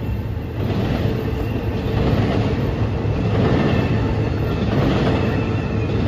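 Freight cars of an intermodal train rolling through a grade crossing: the steady rumble of steel wheels on the rails, growing a little louder about two seconds in.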